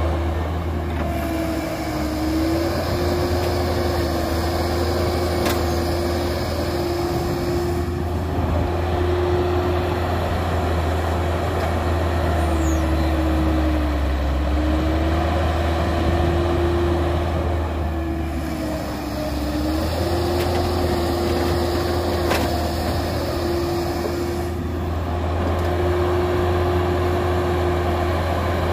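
Caterpillar diesel excavator working: its engine runs steadily with a low hum and a steady tone whose pitch sags briefly three times as the engine takes the hydraulic load of digging soil.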